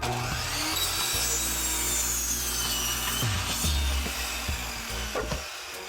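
Electric power saw cutting through a 2x4 framing stud, its high whine sliding down in pitch under load, stopping shortly before the end.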